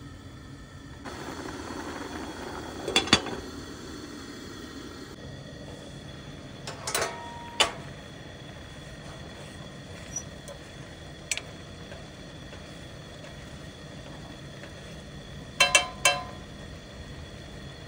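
Cooking utensil stirring and knocking against a small metal saucepan on a portable camp stove, giving several sharp ringing clinks, the loudest about three seconds in and a quick pair near the end. A short rush of noise runs from about one to five seconds in, over a steady background hum.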